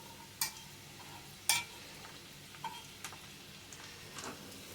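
Cut carrot pieces being added to a pan of hot tempering oil and stirred with a spatula: a few sharp clinks of the utensil against the pan, two of them louder, over a faint sizzle.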